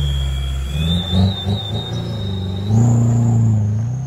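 Mitsubishi Pajero MKII turbodiesel engine revving hard under load as the 4x4 climbs a steep dirt slope. The throttle is blipped a couple of times about a second in, then held for a louder, sustained rev near the end.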